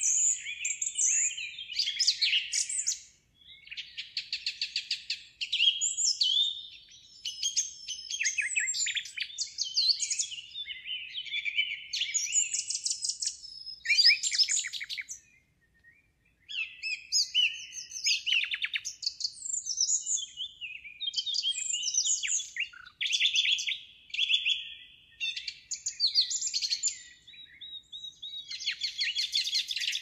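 Small birds chirping and warbling in a dense, high twitter of quick chirps and buzzy trills, with a brief pause about halfway through. No low pigeon cooing is heard.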